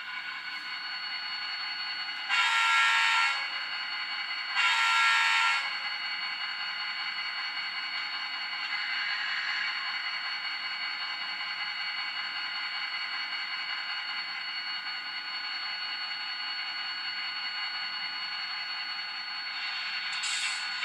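Sound-equipped HO scale GP40-2 model diesel locomotive playing its engine sound through its small onboard speaker, giving two horn blasts of about a second each, a couple of seconds apart: two blasts is the signal for moving off. The engine sound then runs on steadily and grows louder again near the end.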